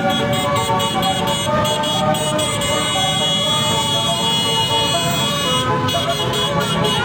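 A bus's basuri musical air horn playing a telolet tune: several horn tones sound together and step from note to note.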